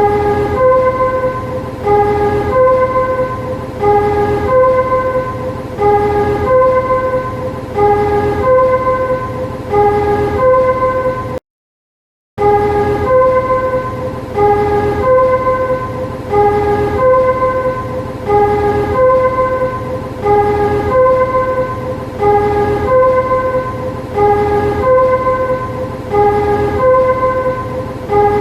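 Warning chime of a railway shunting vehicle in a rolling-stock depot: a two-tone chime that repeats about every two seconds over a steady low hum. The sound cuts out for about a second midway.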